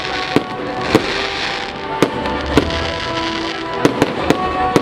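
Fireworks display: about eight sharp bangs of shells bursting, several close together near the end, with a hissing crackle of effects about a second in, over music with held notes.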